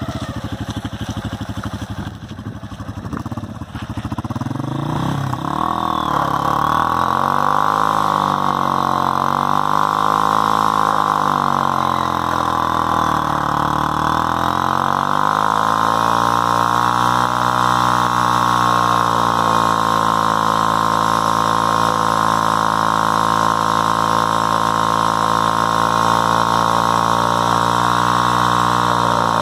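Hero Honda Karizma ZMR's 223 cc single-cylinder engine revving hard in a stationary burnout, the rear tyre spinning against the road until it smokes. The revs rise and fall several times in the first half, then are held high and steady for the rest.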